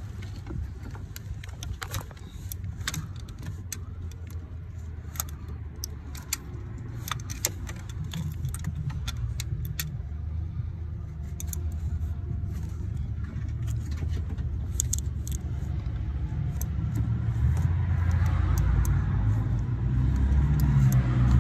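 Ratchet and socket clinking and clicking irregularly against metal in an engine bay, mostly in the first half. Under it runs a steady low rumble that grows louder near the end.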